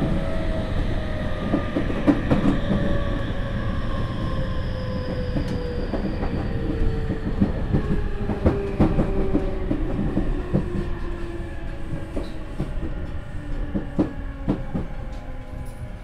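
Tokyu 5000 series electric train heard from on board: its Hitachi IGBT VVVF inverter and traction motors whine in several tones that fall steadily in pitch as the train brakes and slows, over running rumble and wheels clicking over rail joints. The sound grows quieter toward the end.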